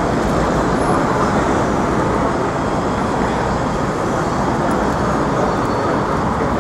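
Steady city street traffic noise: a continuous din of passing motor vehicles on a busy avenue.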